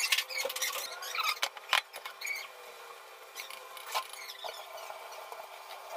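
Boiled potatoes being peeled by hand: small wet squeaks and clicks of skin and fingers on the potato in the first two seconds or so, then quieter, over a faint steady hum.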